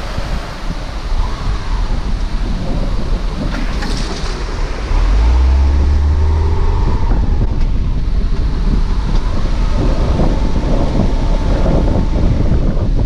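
A Subaru driving slowly over a rough sandy dirt track, with a steady rumble of tyres and running gear and wind on the microphone. A deep low rumble comes in about five seconds in, and after it the noise stays louder.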